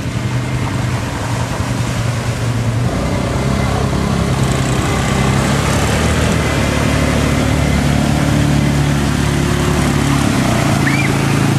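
Quad bike (ATV) engine running as it drives into and through a shallow river, its note shifting a few seconds in. Water splashes and churns around the wheels, growing louder as it wades deeper.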